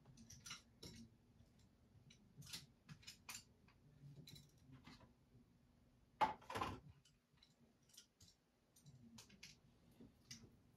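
Faint scattered small clicks and taps of hands handling brushes and painting materials at a desk, with one louder brief knock about six seconds in. A faint steady hum lies underneath.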